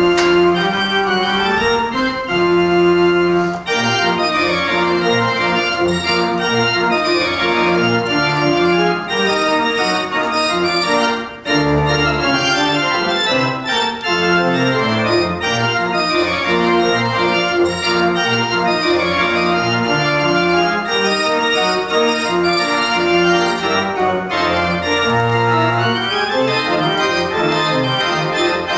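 Pipe organ playing a piece: sustained chords over a moving bass line, with a brief break about eleven seconds in.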